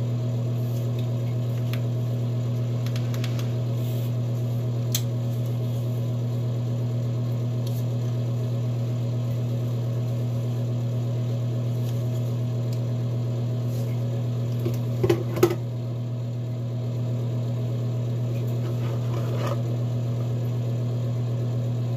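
Plastic clicks and rattles as a small white handheld fan is fitted onto its mini plastic tripod, the loudest a quick cluster about fifteen seconds in, over a steady low hum.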